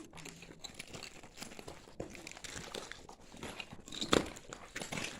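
Irregular crunching and scraping of footsteps and hands on rough lava rock in a lava tube cave, with a louder knock about four seconds in.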